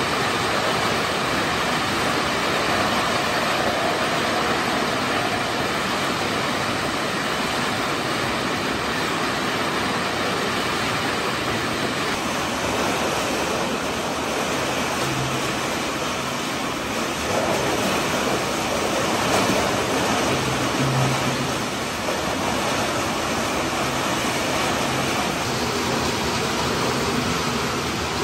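PET bottle recycling line running: a high-speed bottle pre-washer with its water circulation and bottle conveyors, making a steady rushing noise of running water and machinery.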